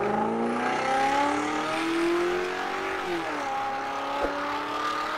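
Car engine revving under load, its pitch climbing steadily, dropping briefly about three seconds in, then climbing again.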